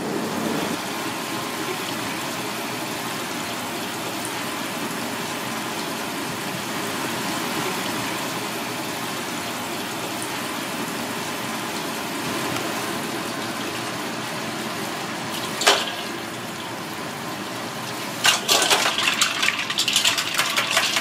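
Water poured steadily over raw fish fillets on a cutting board to rinse them, with one sharp knock late on. Near the end, loud irregular splashing as a hand swishes fish in a steel bowl of water.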